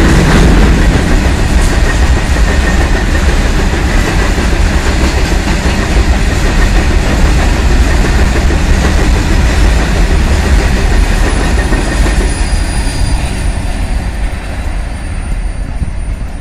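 BOXN open freight wagons rolling past at speed: a steady rumble and clatter of wagon wheels on the rails. It fades over the last few seconds as the tail of the train passes, and a thin high whine sounds faintly near the end.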